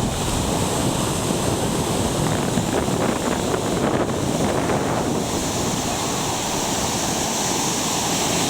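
Ocean surf washing steadily onto the beach, with wind buffeting the microphone; the hiss of the wash grows brighter about halfway through.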